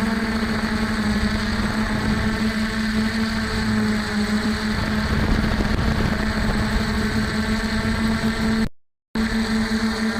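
DJI F450 quadcopter's brushless motors and stock propellers droning steadily in flight, a strong steady hum with a hiss of rushing air. The sound drops out completely for about half a second near the end.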